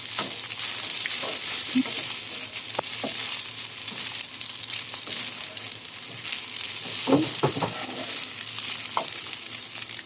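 Fried rice sizzling in a nonstick wok as it is stirred and tossed with a wooden spatula, with a steady sizzle and scattered scrapes and knocks of the spatula against the pan.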